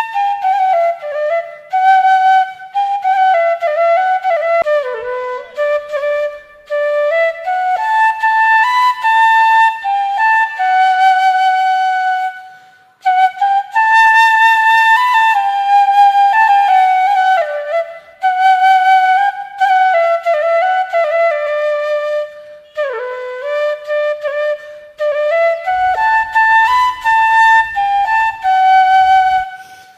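Background music: a solo flute playing a melody in flowing phrases, with a brief pause about halfway through.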